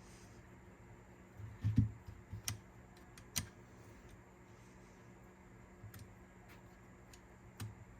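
Scattered light clicks and small knocks from small parts of a cassette deck's tape transport being handled and fitted by hand. The loudest is a knock with a dull thump just under two seconds in, over a faint steady hum.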